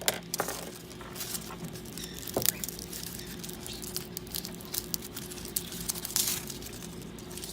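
Hands working bird-toy craft materials: irregular rustling with light clicks and taps as woven paper finger traps are laced onto hemp rope, over a faint steady hum.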